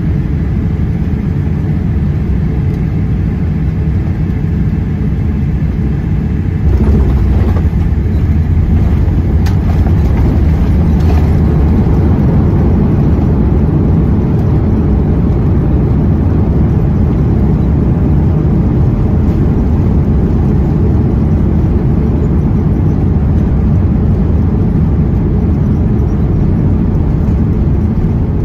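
Boeing 787-8 cabin noise during the landing: a steady low rumble of jet engines and airflow heard through the cabin, which steps up and grows louder about seven seconds in, with a few faint clicks soon after.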